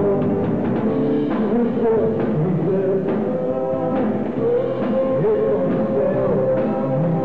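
Live rock band playing: drum kit with cymbals keeping the beat under a held melody line that slides between long notes.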